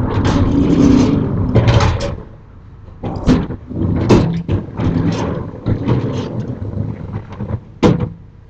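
Sliding storm shutters (amado) being slid shut along their tracks: a run of rumbling, rattling slides broken by sharp knocks, the loudest knock near the end.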